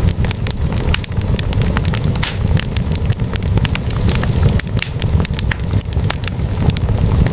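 Wood fire burning in a fireplace, logs crackling and popping in rapid irregular snaps over a steady low rumble of the flames.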